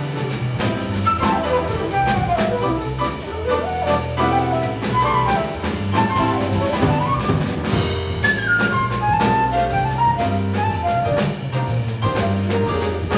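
Live jazz: a flute plays a fast, running line of short notes over upright bass and drum kit, with cymbal strokes keeping a steady beat.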